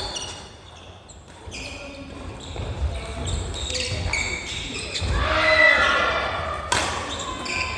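Badminton singles rally on a wooden gym floor: sneakers squeaking and feet thudding as the players run and lunge, with sharp racket strikes on the shuttlecock at the start and near the end.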